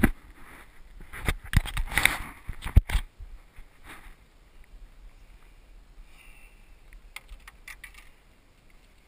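Camera handling noise: rubbing and knocking in the first few seconds, ending in a sharp knock, then quiet with a few light clicks near the end.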